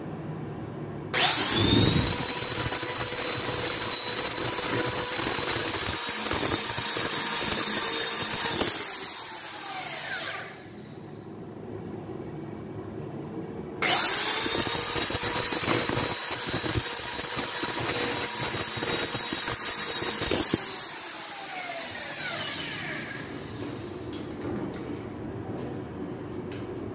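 Electric drill driving screws into the edge of a folding accordion door. It makes two long runs at full speed, about nine and seven seconds, each starting with a loud jolt and winding down in a falling whine as the trigger is released.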